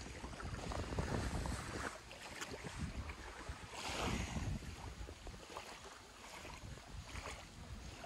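Wind buffeting the microphone in gusts, a low rumble with a steady hiss over it, which swells into a brief louder hiss about halfway through.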